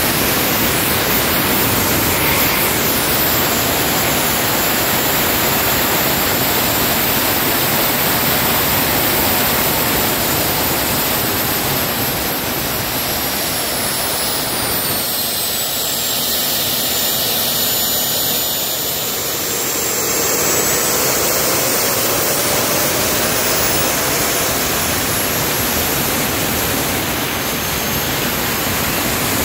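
Homemade turbocharger-based jet engine running: a loud, steady rush of exhaust with a high turbine whistle. About halfway through, the whistle sinks in pitch and the sound eases slightly, then the whistle climbs again as the engine speeds back up.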